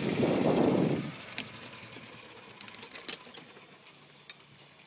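Golf cart rolling over the fairway: a loud rush of rumbling noise in the first second, then a quieter, fading run with a few sharp clicks and rattles.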